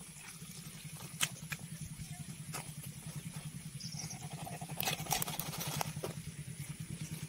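A small engine running steadily with a rapid low pulse, with scattered clicks and knocks over it.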